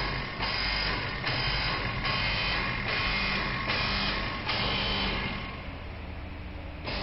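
A machine hissing in even, repeated strokes, a little more than one a second, each starting abruptly, over a steady low hum; the strokes die away near the end.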